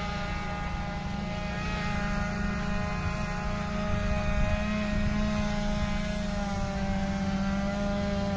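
A steady motor drone with a pitched hum, its pitch sinking slightly near the end.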